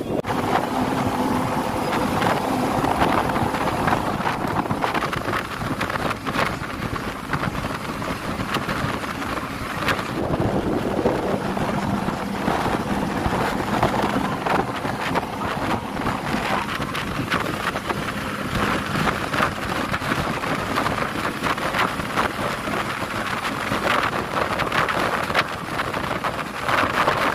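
Wind buffeting the microphone, with the steady running and road noise of a moving bus, heard at an open bus window.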